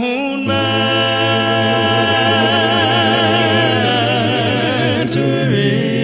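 A cappella gospel quartet singing a long held chord in harmony, the voices wavering with vibrato over a steady bass, moving to a new chord near the end.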